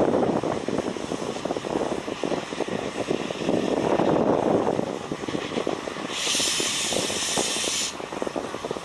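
Narrow-gauge steam locomotives working a passenger train, a dense rushing run of exhaust beats, with a loud burst of hissing steam about six seconds in that lasts nearly two seconds.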